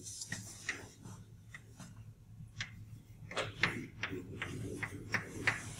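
Chalk writing on a blackboard: a run of short taps and scrapes as the chalk strikes and drags across the board, coming faster and louder from about three seconds in.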